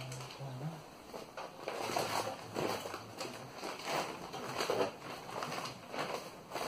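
Irregular rustling and crinkling of aluminium-foil-faced glass wool insulation as it is handled and pressed into metal stud wall framing, several rustles a second.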